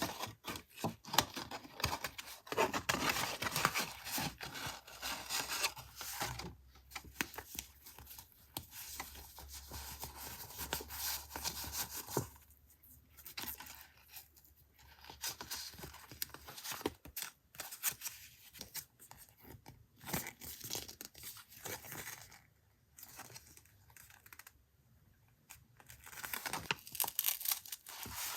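Paper and packaging rustling and tearing by hand, with irregular small taps and clicks, as a gift parcel is unwrapped.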